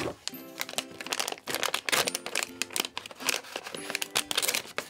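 Plastic blind-bag packet crinkling in a stream of dense, irregular crackles as it is pulled from its box and torn open.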